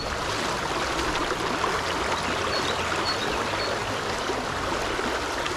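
River water running and trickling over a shallow, rocky riffle, a steady rush.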